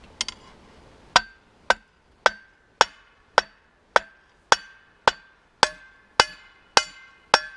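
Hammer blows on a hot steel rod being forged on a makeshift steel anvil. The blows come in a steady rhythm of about two a second, starting about a second in, and each one rings briefly.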